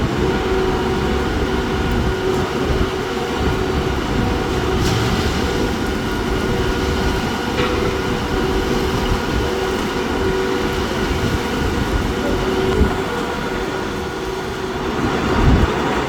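A steady mechanical rumble with a constant hum running through it.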